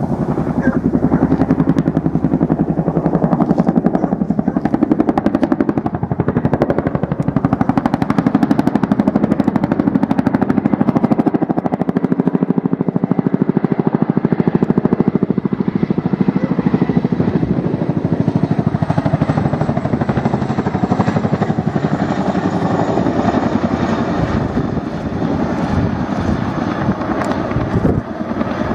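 Chinook tandem-rotor helicopter flying past, its twin rotors beating with a rapid, steady blade slap over the engine noise. A faint high whine comes in about halfway through, and the sound eases a little near the end.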